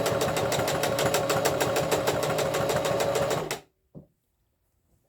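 Electric sewing machine stitching at a steady fast pace, the needle beating a rapid even rhythm, then stopping abruptly about three and a half seconds in, followed by a faint click. It is a new machine that makes a lot of noise.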